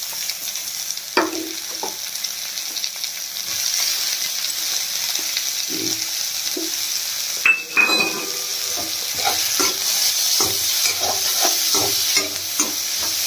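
Chopped onion, green chilli and diced capsicum sizzling in hot mustard oil in a kadhai over high heat. A slotted spatula stirs the vegetables, scraping and tapping against the pan; the taps come more often in the second half.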